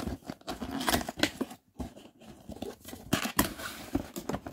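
Folding cardboard box being worked open by hand: the lid's tuck-in tabs scraping and popping free of their slots, with cardboard rustling and a few sharp clicks.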